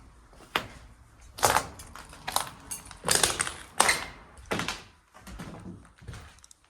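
Footsteps crunching and scuffing on a gritty floor, about one step a second, trailing off in the last second or two.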